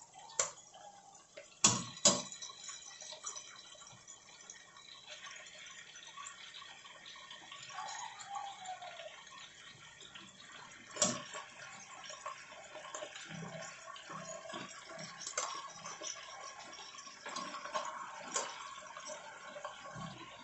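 Pork steak slices frying in their marinade in a stainless steel pot, a steady sizzling and bubbling. A wooden spatula knocks sharply against the pot a few times, loudest twice about two seconds in and once about eleven seconds in.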